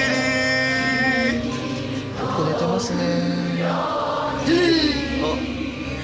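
Music with voices singing long held notes, several pitches in turn.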